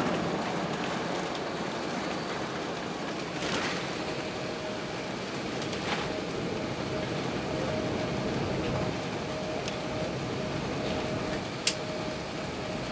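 Steady cabin noise inside an Airbus A380 taxiing after landing: an even hiss of engines and air conditioning with a faint steady tone, a few light clicks, and one sharp click near the end.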